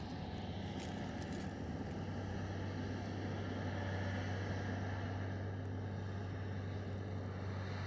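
A farm vehicle's engine running with a steady, even low hum that holds one pitch throughout.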